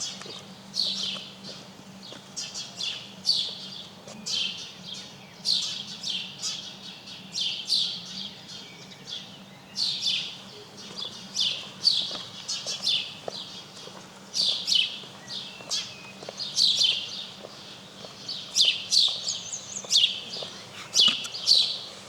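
Small songbirds chirping: a dense run of short, high, down-sweeping chirps, several a second, continuing without a break.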